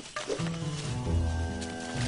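Background music with sustained low chords. Near the start, a tiger gives two short growls.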